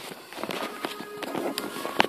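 Cartoon soundtrack playing from a television, heard through a phone's microphone: music with a quick run of sharp clicks and taps.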